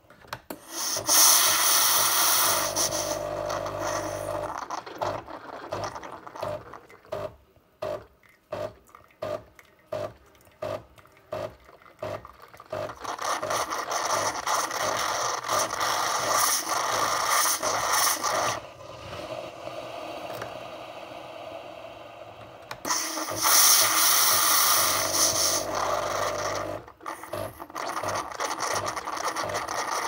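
Nespresso Lattissima Pro capsule machine at work: loud steam-driven hissing with the pump humming underneath, a run of rhythmic pulses about two a second in the middle, and then more steady hissing and spluttering.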